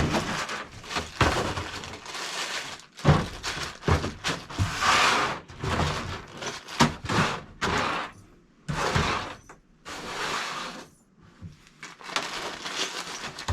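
Rummaging through a bag of RC body clips: small clips clinking and the bag rustling in a run of short, irregular bursts.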